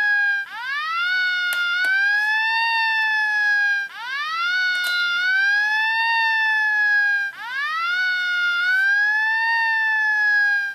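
Police siren wailing in repeated cycles, about one every three and a half seconds: each sweeps up quickly, arcs slowly over and then drops away. A few faint clicks sound over it.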